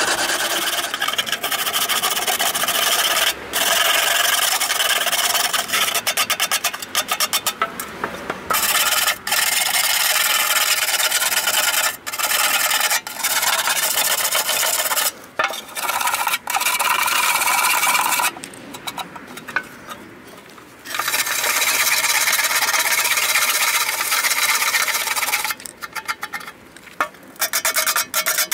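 A sanding disc scraping over the cut sheet-metal edges of a 2-litre fuel can, smoothing them. It goes in long rasping passes that stop and start several times, with a quieter stretch about two-thirds of the way through.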